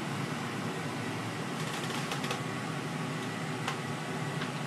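Steady rushing whir of a high-power tube amplifier's cooling blower, with a low hum beneath it. A few faint clicks come about two seconds in and again near the end.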